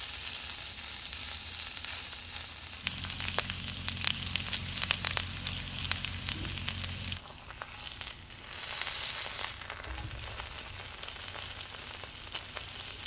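Steak sizzling on a hot cast iron grill plate, a steady hiss with frequent sharp pops and spits of fat. A low hum runs underneath for a few seconds in the middle.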